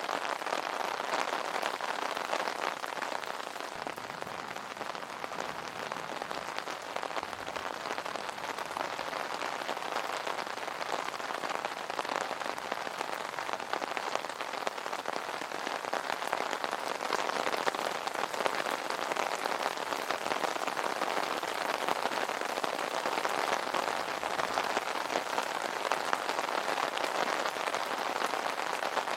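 Steady rain pattering on an umbrella's fabric canopy, a dense even patter of many small drop hits.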